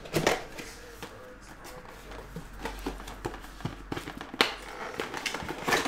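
Hands handling a cardboard box and setting it down on a table mat: a run of knocks and light clicks, the loudest about a quarter second in, about four and a half seconds in, and near the end.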